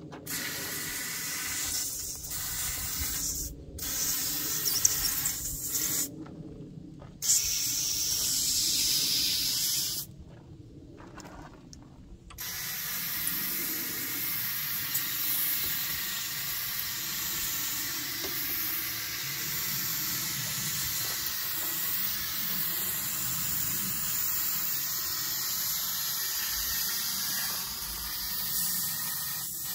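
Compressed air hissing from an air blow gun aimed along the rear window's glass channel. It comes in blasts of a few seconds with short pauses, then one long continuous blast from about twelve seconds in.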